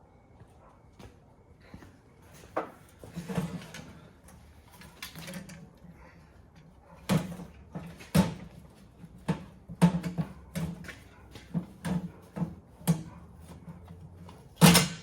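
Irregular metal clanks and clicks, about a dozen sharp knocks with short rattles between them, from handling a car seat frame and its springs while the cushion is stripped off. The loudest knock comes near the end.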